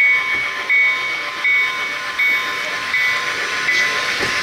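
Electronic bell sound of a model railroad ringing steadily, one stroke about every three-quarters of a second, over a steady hiss.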